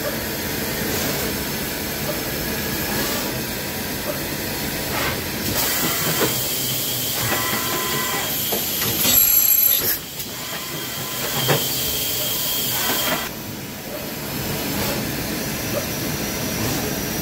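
Bridgeport HMC 700 horizontal machining centre running, heard from inside its enclosure: a steady hiss with a short whine about seven seconds in, a louder burst of hiss a little later that cuts off suddenly, and a few knocks.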